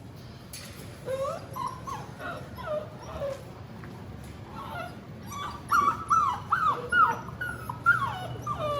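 Young Bernedoodle puppies whining in short, high calls that fall in pitch. The calls start about a second in and come louder and closer together from about halfway.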